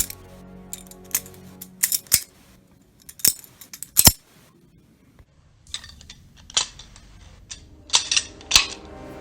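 Butterfly knife (balisong) flipped through double rollouts: sharp metallic clicks as the handles swing around and knock shut, about a dozen in irregular clusters, the loudest about four seconds in. Quiet background music runs underneath.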